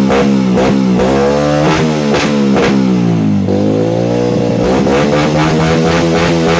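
Honda TMX 125 Alpha's single-cylinder four-stroke engine revving through an aftermarket exhaust muffler, its pitch dropping about three and a half seconds in and then climbing again, with background music underneath.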